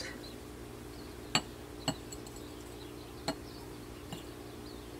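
Glass clinking on glass: three sharp clinks and a fainter fourth, spread a second or so apart, as a small glass of water is brought against a glass candle jar to pour water in.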